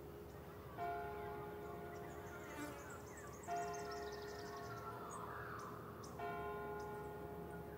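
A church bell tolling slowly, three strikes about two and a half seconds apart, each ringing on until the next. Birds chirp faintly in between.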